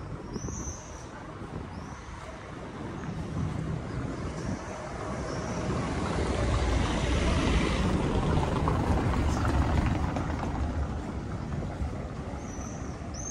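A car driving past over cobblestones: a rumbling of engine and tyres that grows louder, peaks about halfway through and then fades. Short high bird chirps sound near the start and near the end.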